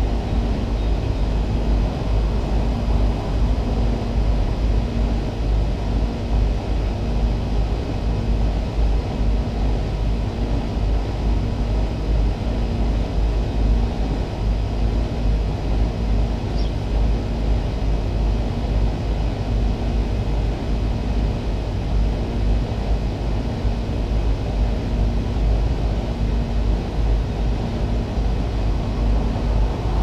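Two Goodman outdoor air-conditioning condenser units running together: a steady compressor hum and fan rush, with a slow regular pulsing in the hum.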